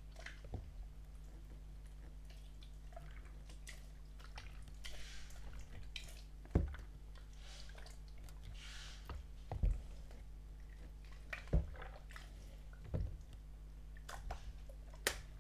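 Soft slime being squished and worked by hand, with wet sticky pops every second or two and softer squelching between them. A steady low hum runs underneath.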